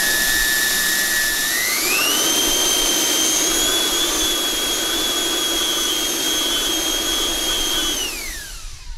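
Twin electric ducted fans of a large RC Boeing 777-9X model airliner running up: a loud, steady whine that steps up in pitch about two seconds in, holds, then winds down near the end. The fans will not go past low throttle, which the builder traces to the speed controllers detecting only 6 of the 12 battery cells.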